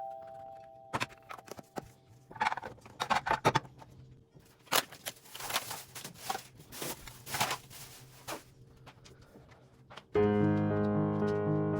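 Kitchen cleaning noises: scattered knocks and clatters with several longer scrubbing or spraying-like noises. Background music comes in suddenly near the end.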